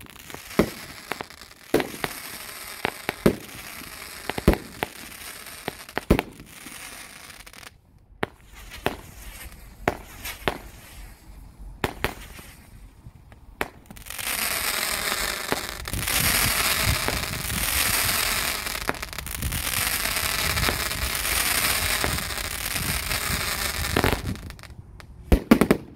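Anti Snitch brand 'The Smackdown' 36-shot 200 g firework cake firing: a string of sharp launch thumps and bursts for the first half, then a long stretch of dense, loud crackling, and a few loud bangs close together near the end.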